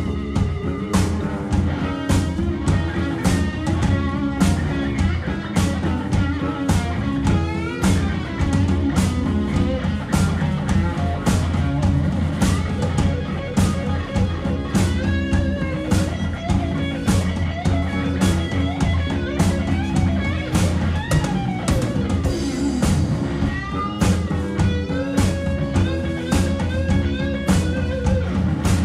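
Live rock band playing: electric guitar over bass guitar and a drum kit keeping a steady beat.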